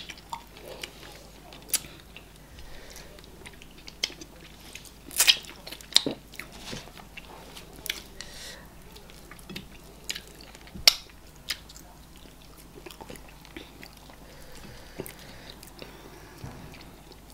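Close-up eating sounds of two people eating eba and okra soup by hand: chewing and wet mouth noises, broken by scattered sharp smacks, the loudest about five and eleven seconds in, and quieter in the last few seconds.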